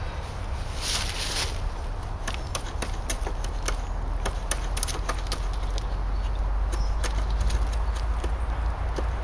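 Fixed-blade knife carving into a wooden pole: a brief scraping hiss about a second in, then a run of sharp, irregular clicks as the blade bites and shaves the wood, over a steady low rumble.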